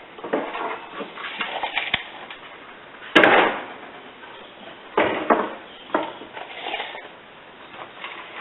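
A run of irregular knocks and scrapes, with one loud bang about three seconds in and another sharp knock about two seconds later.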